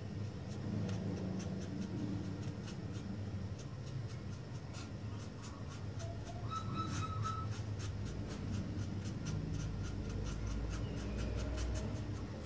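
Scratching and scattered small clicks of hands working on a craft piece, with a short bird chirp about seven seconds in.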